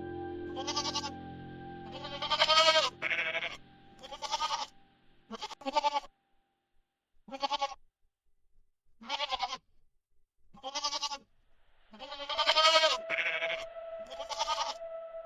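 An animal calling over and over: about ten short, wavering cries with gaps between them, the longest near the start and again about twelve seconds in.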